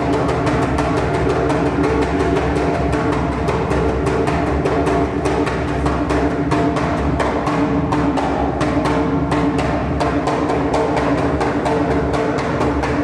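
Music: a fast, even percussion beat of about six or seven strokes a second over sustained droning tones.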